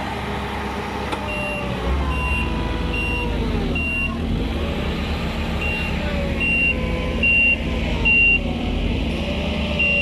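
Engine of a heavy vehicle or machine running, with a backup alarm beeping about once a second and pausing briefly midway. The engine gets louder about two seconds in.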